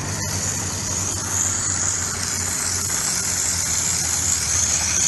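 Miniature steam locomotive setting off, with a steady hiss of steam over a low hum.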